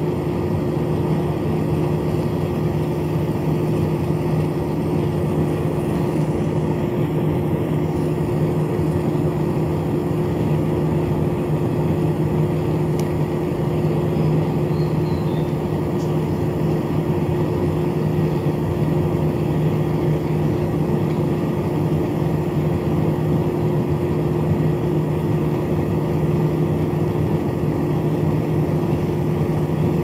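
Small 7.2-volt DC motor spinning the plastic fan of a homemade cardboard air conditioner, running at constant speed with a steady hum and whir of air.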